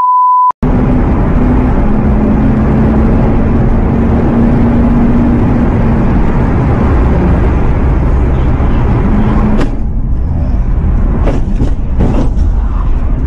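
A test-tone beep for about half a second, then a car driving hard, heard from inside the cabin: loud engine running at a steady pitch under heavy road and wind noise. Several sharp clicks near the end.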